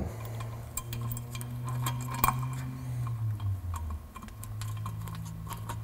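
Light metallic ticks and clicks as a bolt is threaded by hand into a differential cover, turned with a hex bit, over a steady low hum.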